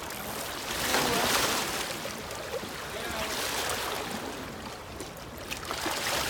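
River water lapping and washing against a rocky shoreline, swelling about a second in, with faint voices in the background.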